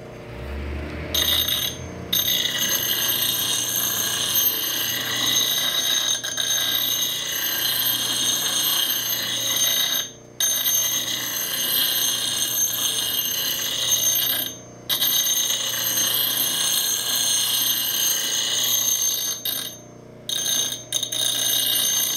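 Bench grinder with a 100-grit aluminium oxide wheel grinding the bevel of a short-handled adze: a steady high-pitched grinding hiss over the motor's whine. The hiss starts about a second in and breaks off briefly three times.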